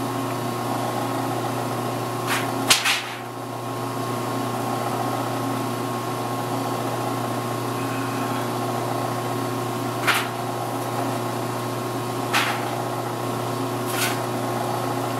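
Milling machine running steadily with a constant hum while its cutter works a notch into a wooden gun grip, with a few brief sharp sounds as the cutter bites into the wood.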